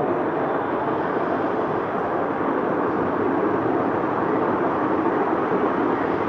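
Walton ceiling fan running, a steady even rushing noise with no change in speed.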